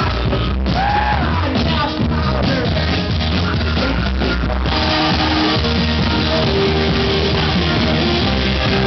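Live rock band playing loud with electric guitars, drums and a sung lead vocal. About halfway through the sound thickens into a denser, steadier wash with long held notes.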